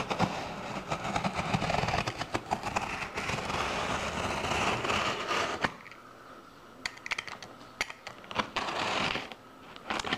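Cardboard rustling, scraping and clicking as a large cardboard box is handled and opened: dense and busy for about the first six seconds, then quieter with scattered sharp clicks, busier again near the end.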